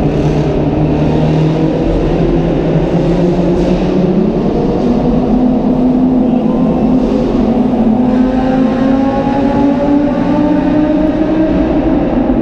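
Audi RS6 with an Akrapovič exhaust, heard from inside the cabin as it drives through a tunnel under load. The engine note steps up in pitch about four and a half seconds in, then climbs slowly as the car accelerates, with tunnel echo on the exhaust sound.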